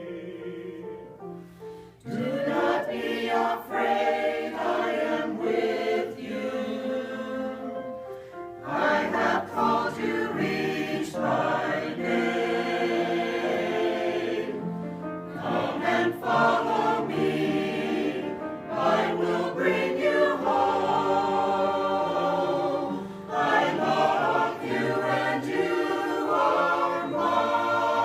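Choir singing together. After a short lull about two seconds in, the voices come back in full and carry on.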